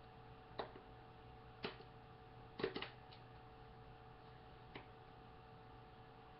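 A few short, light knocks or clicks, four or five spread over several seconds with a close pair near the middle, over a steady faint electrical hum.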